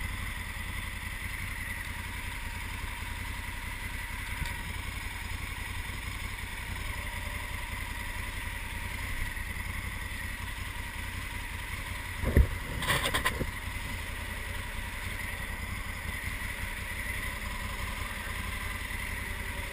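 2020 Honda Africa Twin's 1084 cc parallel-twin engine idling steadily at a standstill, with a brief knock and rustle about twelve seconds in.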